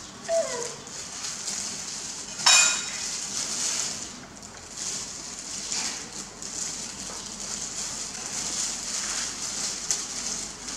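Food-prep handling at a table: a knife slicing pork on a wooden cutting board, with one loud, sharp clatter about two and a half seconds in and a short falling squeak just after the start, over a steady hiss.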